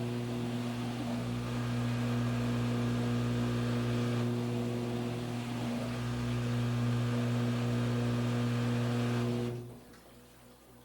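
Washing machine motor running with a steady hum over a rushing noise. It cuts off about nine and a half seconds in, leaving only a faint low hum.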